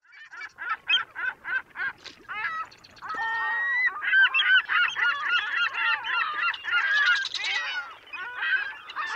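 A flock of birds calling. Separate short calls come about three a second at first, then from about three seconds in many calls overlap in a dense chatter.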